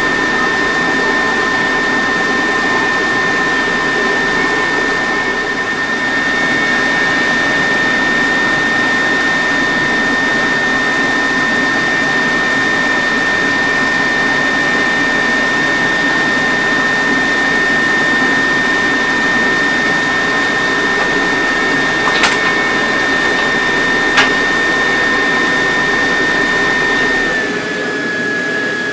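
Car engine idling steadily, with a steady high whine over the running. Two short clicks come about 22 and 24 seconds in, and near the end the whine slides down in pitch as the running fades.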